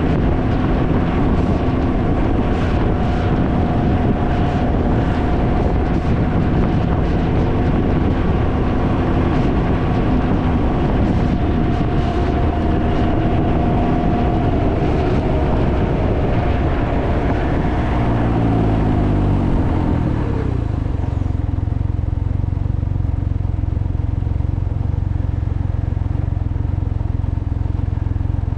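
Can-Am Ryker three-wheeler's engine running under way, buried in heavy wind noise on the microphone. About 17 seconds in the engine note falls as the machine slows. From about 20 seconds in only a low rumble of wind and engine remains.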